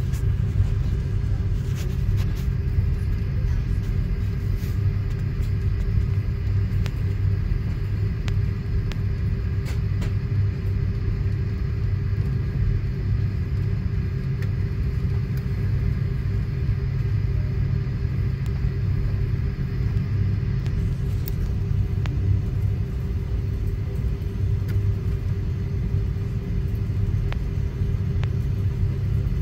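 Cabin noise of a Boeing 777-300ER taxiing: a steady low rumble from its GE90 engines at taxi power and the wheels rolling over the taxiway, with a constant hum and a few faint clicks.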